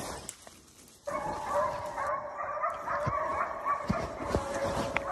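A pack of deer hounds baying together: the overlapping, wavering cries come in suddenly about a second in and carry on, with a few light knocks over them.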